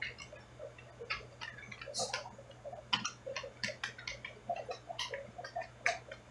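Irregular sharp clicks and ticks, a few each second, over a steady low hum, heard through a camera submerged in an aquarium.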